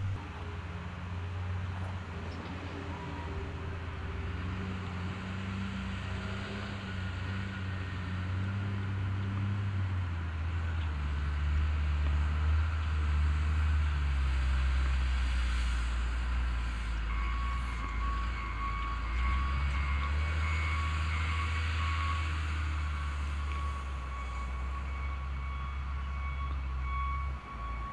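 John Deere 624J wheel loader's diesel engine running, revving up and growing louder about ten seconds in as the loader works with a full bucket of dirt. Through the last ten seconds a backup alarm beeps steadily over the engine.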